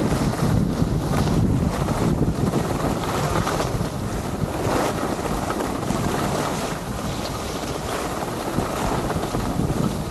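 Wind buffeting an action camera's microphone while skiing downhill, with skis hissing and scraping over packed snow. The rush eases a little near the end as the skier slows.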